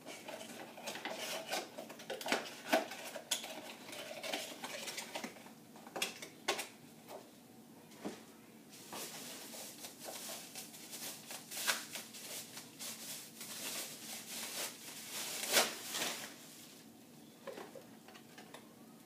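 Merchandise being unpacked by hand: paper and plastic packaging rustling and crinkling, with irregular light clicks and knocks as items are handled.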